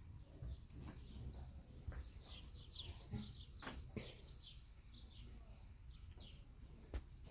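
Faint bird chirping: a run of short, high, downward-falling notes through the middle, with a few light knocks.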